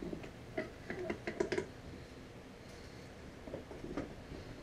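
Light metallic clicks and clinks of automatic-transmission gears and shafts being handled and lifted out of the case. A quick cluster comes about a second in and a few more near the end.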